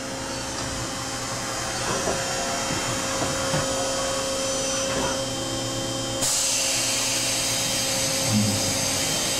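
Spindle of a 1999 Okuma & Howa Millac 630H CNC horizontal machining center running at a speed raised by the override above 2500 RPM: a steady mechanical whine with a hum beneath it. About six seconds in, a loud hiss comes in suddenly and holds.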